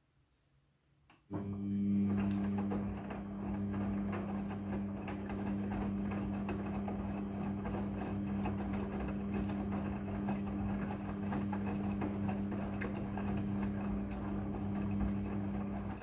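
Midea front-loading washing machine starting up with a click about a second in, then running with a steady hum and a rushing, churning noise.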